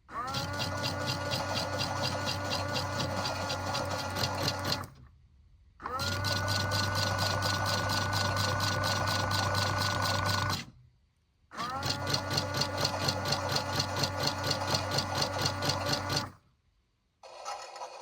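Washing machine motor turning the drum in three runs of about four to five seconds. Each run starts with a quick rising whine, then holds a steady hum with a fast, even clatter, and stops for about a second before the next. A different hissing sound starts near the end.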